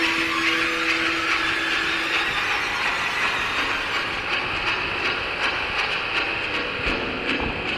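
Mountain bike rolling fast down a gravel track: a steady rush of tyre noise and wind on the camera, with sharp rattling clicks over stones from about halfway.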